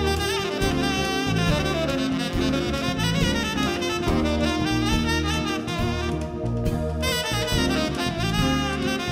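Tenor saxophone playing fast runs of notes over a jazz band's accompaniment.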